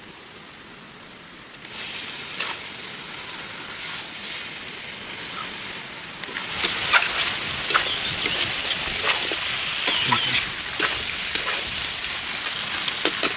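Chicken curry with cluster beans sizzling in a steel kadai, with a metal spatula scraping and knocking against the pan as it is stirred. The sizzling comes up about two seconds in and grows louder, with many sharp scrapes and clinks, about six seconds in.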